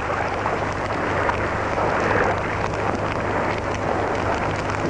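Campfire crackling and hissing: a steady rush of noise dense with small snaps, over a low hum from the film soundtrack.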